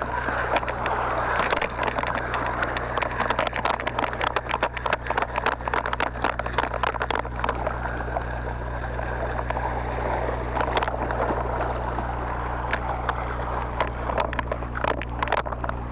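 Sea washing against the rocks under a steady low rumble, with a fast clicking rattle through roughly the first half as a spinning reel is cranked to bring in a hooked fish.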